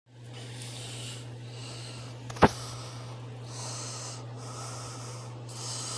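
A steady low electrical hum under a hiss that comes and goes, with one sharp click about two and a half seconds in.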